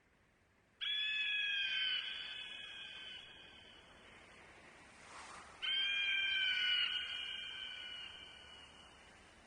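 Eagle call played as a sound effect: two shrill, slightly falling screams about five seconds apart, each starting suddenly and trailing off over a few seconds.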